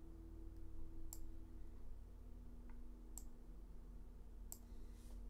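A few scattered, faint sharp clicks from operating a computer while drawing, over a steady low electrical hum.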